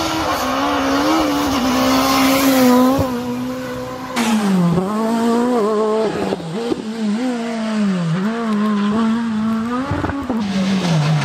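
Renault Clio S1600 rally car's high-revving four-cylinder engine at full throttle, its pitch climbing and dropping over and over as it shifts gear and lifts for corners. The sound breaks off abruptly about four seconds in and picks up again on another pass.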